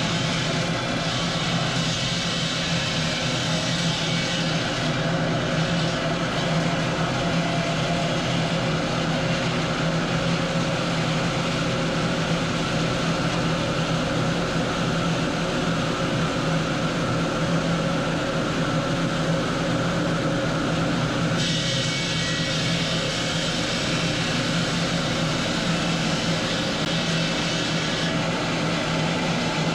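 Steady drone of stone-cutting machinery in a marble workshop: a constant low hum under a dense grinding noise. A brighter, hissier layer comes in twice, briefly near the start and for several seconds near the end.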